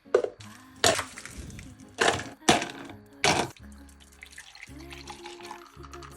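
Ice cubes dropped into a glass, about five sharp clinks in the first three and a half seconds, over background music.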